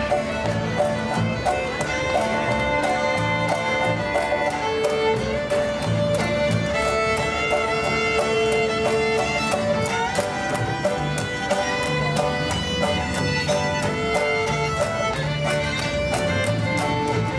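A country-bluegrass band playing an instrumental passage, fiddle leading over a steady beat.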